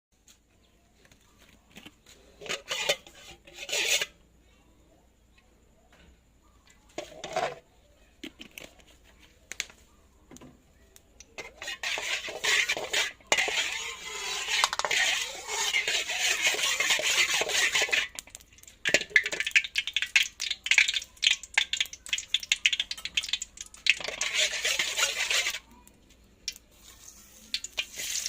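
Kitchen utensils and cookware clinking and clattering while chives are prepared for frying, with a long stretch of steady hissing noise about halfway through and rapid clicking and a shorter hiss near the end.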